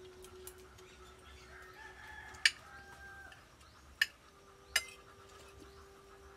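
Spoons and forks clinking against plates three times, sharp and short. A rooster crows faintly underneath.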